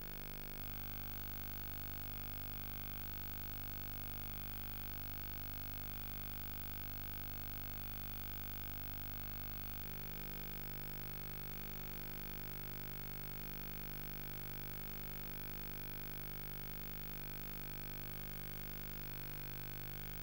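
Steady electrical hum and hiss with no programme sound: the soundtrack of the recording is missing. The hum shifts in tone about half a second in and again near the middle.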